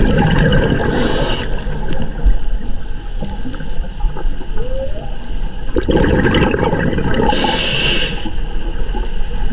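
Underwater recording of humpback whale song, with low moans and a rising whoop about halfway through. Two long bursts of bubbling from a scuba diver's exhalation come at the start and about six seconds in, and a dolphin whistle sweeps in near the end.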